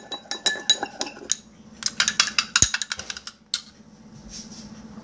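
Spoon clinking rapidly against a small bowl while stirring a thick mixture of hand soap, salt and body wash. There is a short pause about a second in, and the clinking stops a little past halfway.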